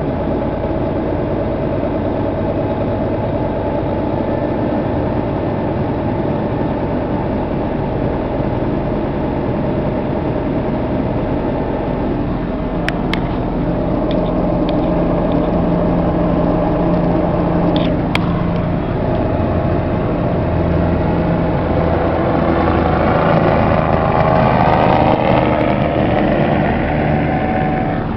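Vehicle engine and road noise heard from inside the cab while driving, a steady drone that grows louder about two-thirds of the way through. A couple of sharp clicks come in the middle.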